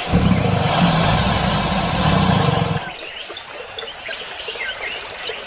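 Deep, rough animal roar sound effect, loud for about the first three seconds, then stopping. Birds chirp over a quieter nature background for the rest.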